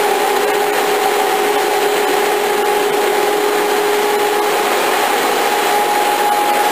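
Karlville K5 Compact shrink sleeve seaming machine running at production speed: a steady rushing hiss with a steady two-note whine.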